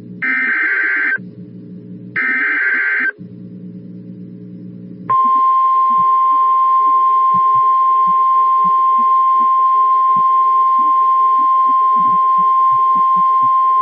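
Emergency Alert System tones: two harsh bursts of digital header data, each about a second long and a second apart. About two seconds later comes a long, steady, single-pitch attention tone of the kind NOAA Weather Radio uses.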